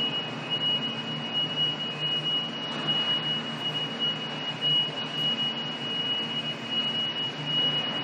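A steady high-pitched tone with a low mechanical hum and a wash of noise beneath it.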